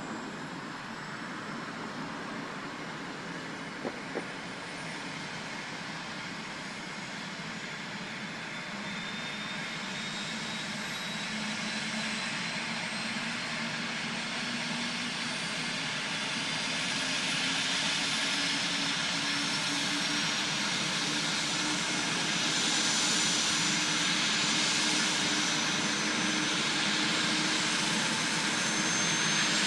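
Airbus Helicopters H145 D3's twin Safran Arriel 2E turboshaft engines starting up: a steady turbine rush with a high whine that slowly rises in pitch and grows louder. Two short clicks come about four seconds in.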